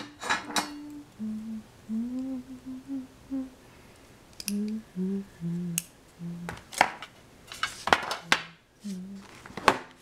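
A person humming a slow tune in short, separate notes, with sharp clicks and clatter of dishes or utensils in between. The clatter comes thickest about two-thirds of the way in.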